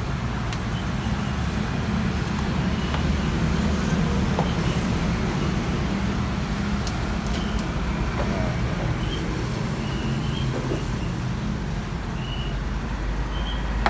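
Steady road traffic noise: a low engine rumble from passing cars and motorbikes, with a few faint light clicks.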